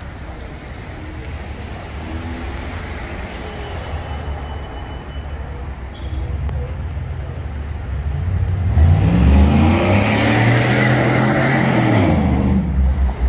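City street traffic rumbling, then a large truck's engine comes up loud past the last third, its pitch rising as it pulls away and falling again as it passes and fades near the end.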